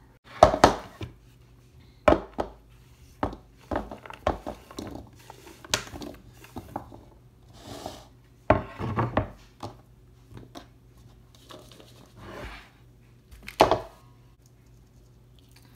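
Chef's knife scraping across a bamboo cutting board as chunks of Korean radish are scooped up and dropped into a bowl: an irregular run of knocks, scrapes and clatters. The loudest come about half a second in, around nine seconds and near fourteen seconds.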